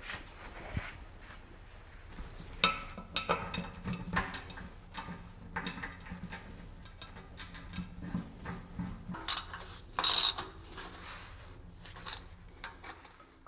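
Hand tools on steel covers: a socket ratchet clicking in short runs, with scattered metal clinks and knocks as cover bolts are fitted back onto a compactor roller drum.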